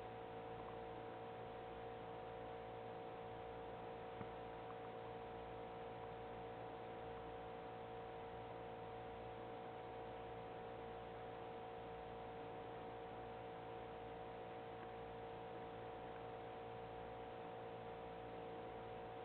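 Steady electrical hum over faint room noise, with one faint knock about four seconds in.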